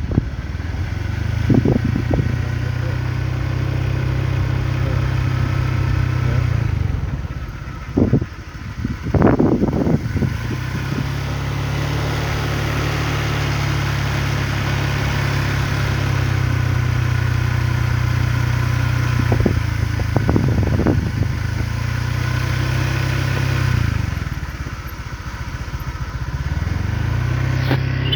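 A small engine running steadily, easing off briefly near the end, with a few short knocks over it.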